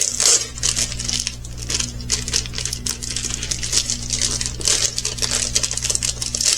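Plastic packaging of a diamond painting kit crinkling and rustling as it is handled, in short irregular crackles.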